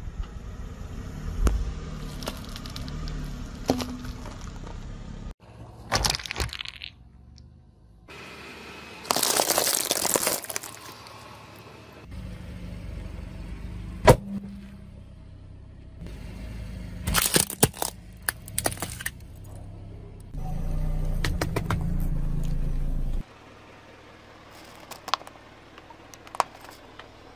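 A car tyre rolling slowly over small hard objects on asphalt, lollipops and plastic pieces, cracking and crunching them, in a string of short cut-together takes. A low car rumble runs under most takes, with sharp cracks and crunchy bursts as things break, the loudest a single sharp crack about halfway through.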